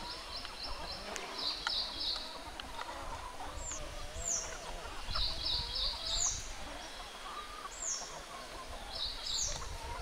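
A small bird chirping repeatedly in high runs of quick notes and short downward-sweeping calls, over the soft low clucking of foraging chickens.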